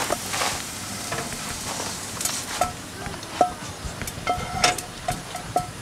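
A cooking utensil scraping and knocking against a frying pan as browned onions are tipped out into a bowl: a series of short, light clinks, each with a brief ring, over a steady hiss.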